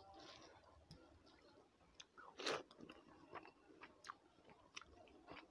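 A person eating by hand, quietly chewing rice and crumbly fried fish, with small mouth clicks and one louder crunch about halfway through.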